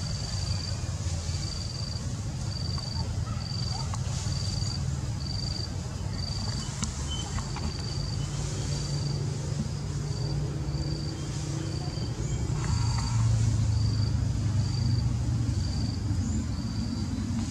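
An insect chirping: one short, high note repeated evenly about every three-quarters of a second, over a steady low rumble.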